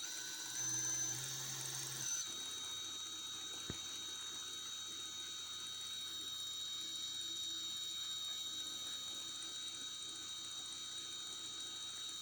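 Multistar Elite 2306-2150Kv brushless motor spinning with a steady high whine and a strange mechanical noise, the sign that the motor is failing. It runs louder for a moment about half a second in, then settles to a steady pitch, with a single sharp click near the middle.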